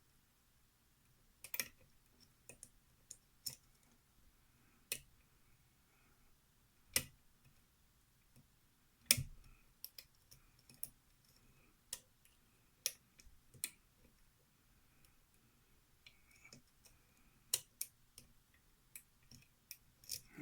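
Lock pick and tension wrench working the pins of a pin-tumbler challenge lock during single-pin picking: sharp, irregular metallic clicks, spaced from under a second to a couple of seconds apart, with the loudest near the middle.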